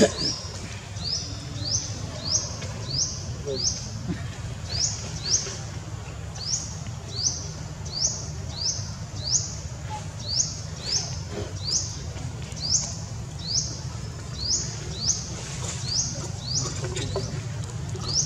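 A bird repeating a short, high chirp, each note sweeping upward, at about one to two a second, over a steady low hum.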